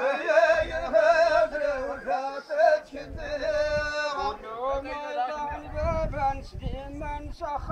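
A man singing a solo chant in long held notes that bend and waver in pitch. A low rumble comes in around six seconds in.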